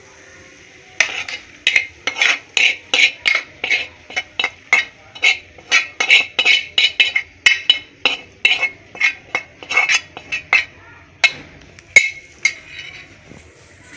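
A metal spoon scraping and knocking against a frying pan in quick repeated strokes, about two or three a second, as the fried onions and ghee of the tadka are pushed out of it, ending in one sharp clank a little before the end.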